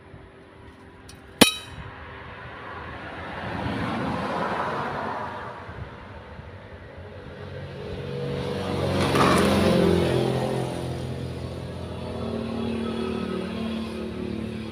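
Road vehicles passing by, their engine and tyre noise swelling and fading twice, the louder pass about nine to ten seconds in. A single sharp click about a second and a half in.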